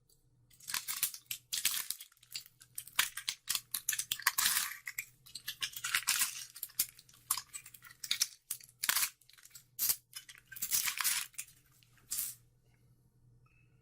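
Magic: The Gathering booster pack wrapper being torn open and crinkled by hand, a long run of irregular tearing and crackling that stops about twelve seconds in.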